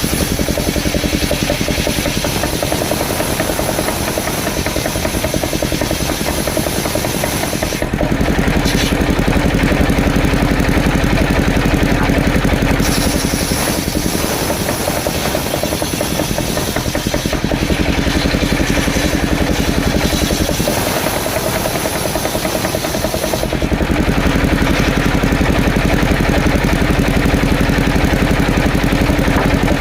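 Engine-driven mobile circular sawmill running steadily while sawing coconut-palm logs. Its sound changes several times as the blade's load shifts between cutting and spinning free.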